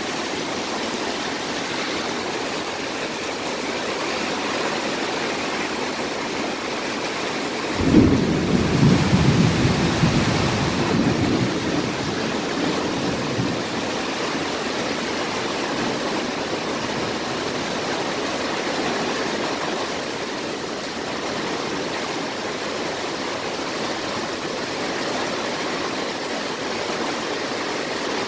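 Heavy thunderstorm rain falling steadily. About eight seconds in, a sudden clap of thunder starts and rumbles for several seconds before fading.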